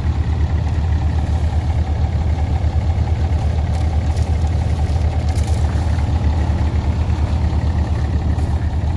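Ram pickup truck's engine idling steadily: a low, even throb. A few soft swishes of a snow brush on the snowy hood come in around the middle.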